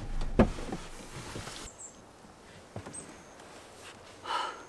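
Parked car's engine idling, then switched off about a second and a half in, with a sharp click near the start; a short high whine near the end.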